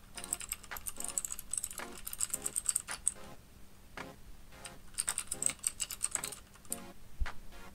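Rapid computer-keyboard typing clicks in two runs: one of about three seconds, then after a short pause a second, shorter run, with a few stray clicks near the end.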